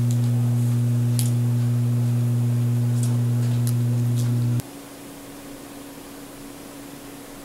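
A loud, steady low hum with a few faint ticks over it, cutting off suddenly about four and a half seconds in and leaving a faint, higher steady tone.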